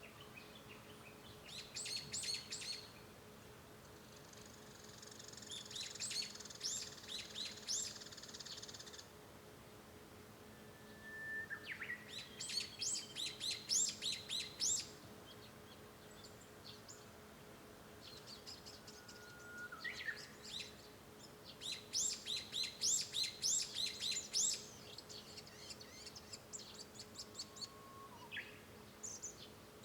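Japanese bush warbler (uguisu) singing several phrases. Some open with a short held whistle that breaks into a rapid run of quick high notes, and there are more bursts of fast repeated notes between them.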